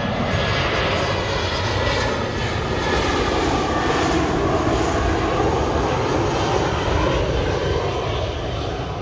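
Jet airliner passing close by: loud, steady engine noise with slowly sliding tones running through it.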